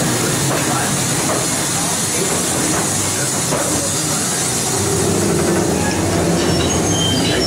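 Mine-train ore cars rolling along the track through a cave, with a steady hiss of steam effects over the low rumble of the cars.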